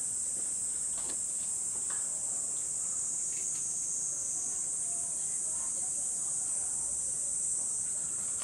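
Steady high-pitched chorus of crickets, with a few faint clicks.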